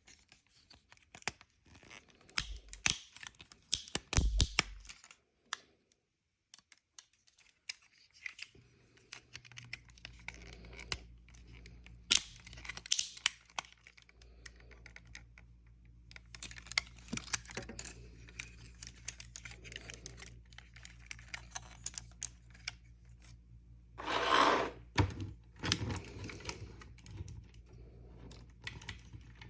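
Irregular quick plastic clicks and rustling from a toy figure and its packaging being handled, with a louder rustle about 24 seconds in. A steady low hum comes in about a third of the way through.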